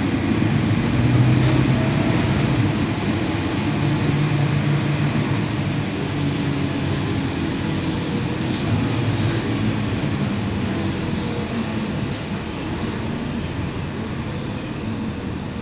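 Cabin sound of a Mercedes-Benz OC500LE bus under way: its diesel engine and drivetrain running steadily with road and tyre noise. It grows a little quieter through the second half as the bus eases off.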